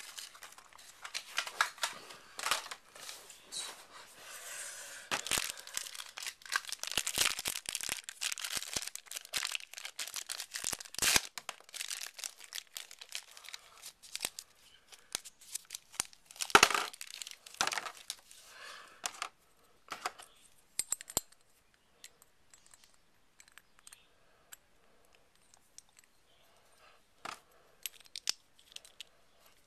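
Clear plastic packaging being crinkled and torn open by hand: dense crackling and tearing with sharp snaps for the first twenty seconds or so, then only scattered light clicks and rustles.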